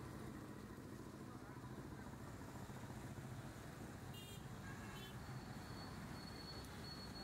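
Steady low rumble of street traffic with faint, indistinct voices. Short high-pitched beeps come about four and five seconds in, followed by a thin, broken high tone.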